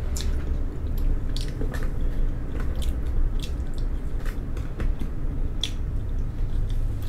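A person chewing food close to the microphone: irregular mouth clicks and smacks over a steady low hum.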